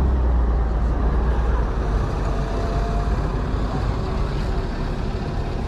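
Metro train running with a steady deep rumble that eases off slightly, with a faint whine about two seconds in.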